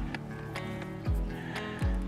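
Background music with a deep, recurring bass-drum beat under held tones.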